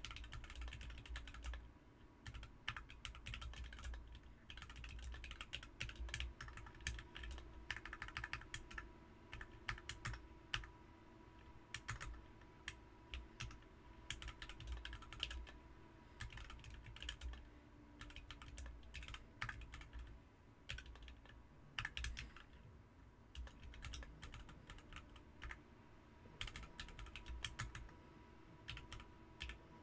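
Typing on a BM43 40% mechanical keyboard fitted with Ms Piggy switches: a continuous run of keystrokes coming in quick bursts with brief pauses.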